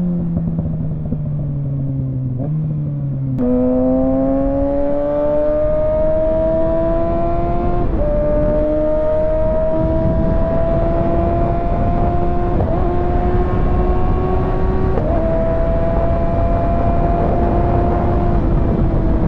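Kawasaki ZX-6R 636 inline-four engine and exhaust on a ride: the revs fall off-throttle for the first few seconds, then about three and a half seconds in the throttle opens and the engine pulls hard, pitch climbing through the gears with four quick upshifts. Steady wind and road rush underneath.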